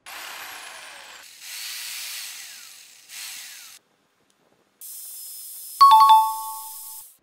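Edited-in sound effects: three whooshes, each a hiss with a falling sweep, then after a short silence a hissing shimmer topped by a bright two-tone chime about six seconds in, the loudest sound.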